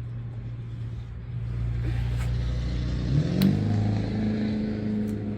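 An engine running steadily, whose pitch rises quickly about three seconds in and holds at the higher speed, with a sharp click at the moment of the rise.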